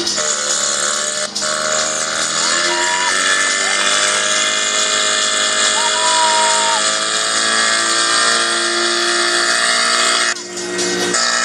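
Portable fire pump engine running at high revs, its pitch wavering, with the hiss of a high-pressure water jet from a hose nozzle.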